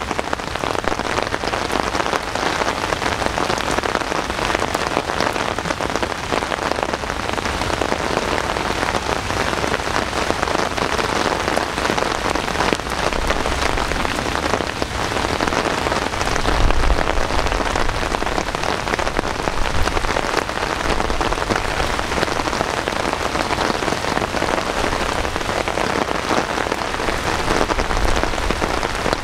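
Steady heavy rain falling and pattering on nearby surfaces, an even hiss throughout, with a couple of low rumbling swells about halfway through.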